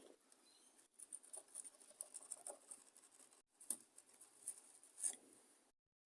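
Faint scratching and light ticking of a thin cleaning wire being fed into the centre of a small carburettor jet.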